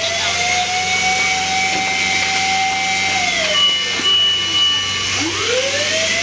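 Fire truck's mechanical siren winding up to a steady wail, holding it for about three seconds, then winding down, and winding up again near the end, over a steady rushing noise.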